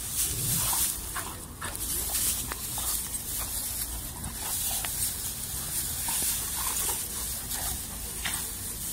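Two dogs play-fighting in loose straw: the straw rustles and scuffles under them, with short scattered dog vocalizations now and then.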